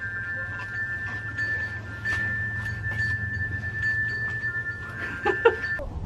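Wind chime ringing: several clear tones hang on and overlap, renewed by light strikes, over a steady low rumble.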